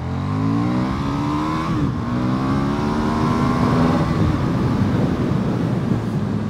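KTM Super Duke R's 1301 cc V-twin engine accelerating hard, short of full throttle: the revs climb, drop once at a gear change about two seconds in, climb again, and even out after about four seconds.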